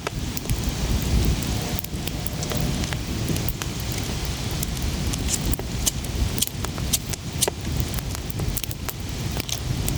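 Campfire crackling, with sharp irregular pops scattered throughout over a steady low rumble.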